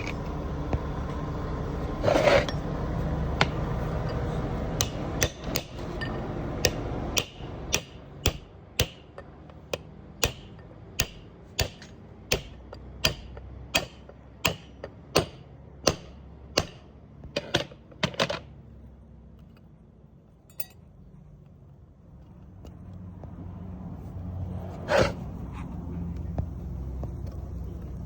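Hammer blows on metal during differential pinion seal work: a steady run of sharp strikes, about two a second, that stops abruptly about 18 seconds in, with one more strike near the end. A low steady hum sits under the start, fades away, and comes back near the end.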